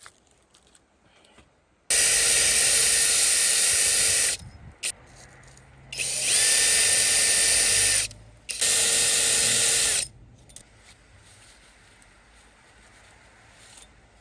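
A tool running in three bursts of a couple of seconds each, a steady bright whirring hiss that starts and stops abruptly, used to clean out the injector holes.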